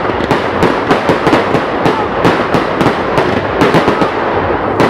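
Fireworks going off in a continuous barrage: sharp bangs, about three a second, over a steady crackle.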